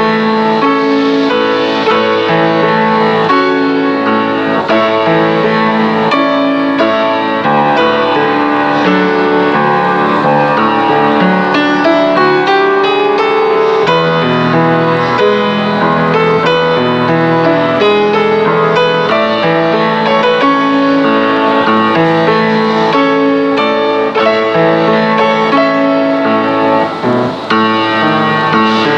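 Background music led by piano, with sustained chords and melody notes.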